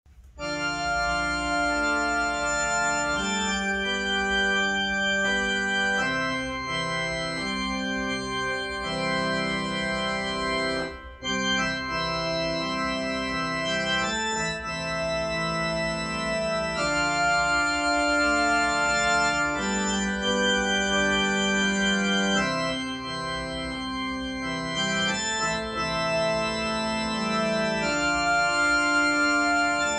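Kurzweil digital keyboard played with an organ voice: a hymn tune in held chords, with a short break in the sound about eleven seconds in.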